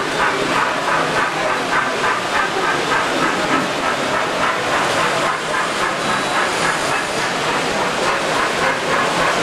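Steady din of a busy exhibition hall: a dense, unbroken wash of noise with no clear words.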